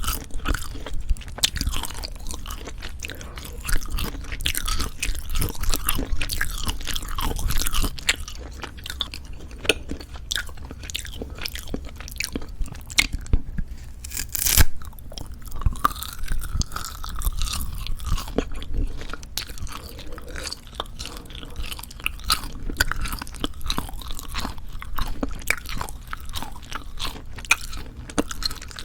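Close-miked chewing of Jeju black pork jerky: a continual run of irregular moist clicks and crackles, with one louder sharp snap about halfway through.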